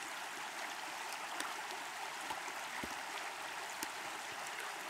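Shallow river rapids: water rushing steadily over a stony riffle, an even rushing with little low rumble.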